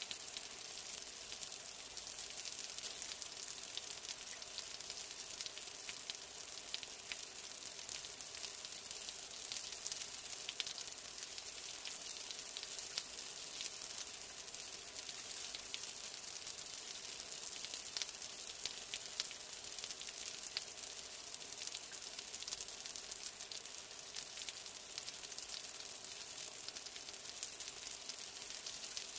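Steady rain: a dense, even hiss with the fine, quick ticking of countless individual drops.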